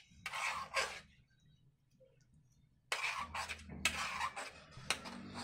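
Metal ladle stirring thick chickpea curry in an aluminium kadhai: a short bout of scraping and stirring, a pause of about two seconds, then stirring again.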